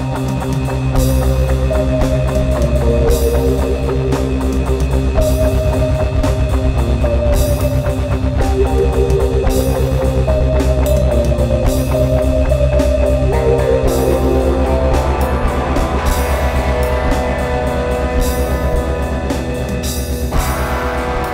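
Improvised rock jam: guitar and keyboard playing held melodic lines over a drum kit, with cymbals crashing every second or two.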